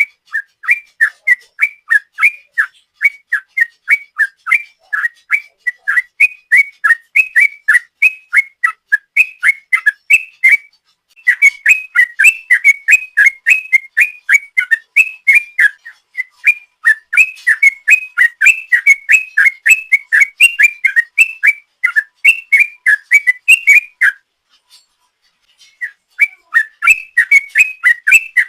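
Yellow-vented bulbul (trucukan) singing a long 'ropel' run of rapid whistled notes, about three to four a second. It breaks off briefly about eleven seconds in and again for about two seconds near the end, then resumes.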